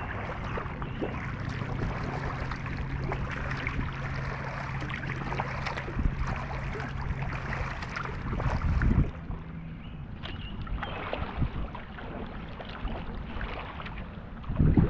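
Paddle strokes splashing and river water lapping against a kayak's hull, with a steady low hum through the first half. There is a louder splash about nine seconds in, after which the sound goes quieter.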